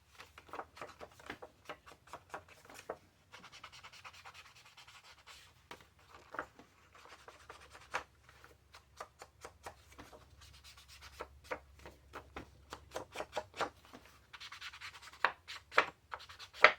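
Paper edges being inked by hand: an ink applicator rubbed and dabbed along the card in many short, irregular scrubbing strokes.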